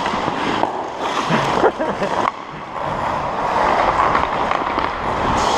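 Hockey skate blades carving and scraping on rink ice in a steady hiss, with a few sharp knocks and a short shout about a second and a half in.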